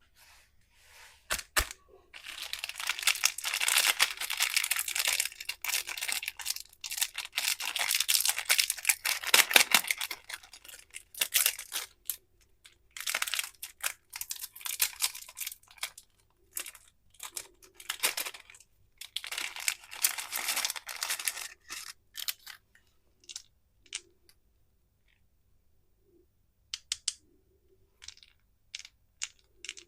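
Plastic and foil candy wrappers being crinkled and torn open by hand. The crinkling comes in long dense stretches, then thins out to scattered short clicks and taps near the end.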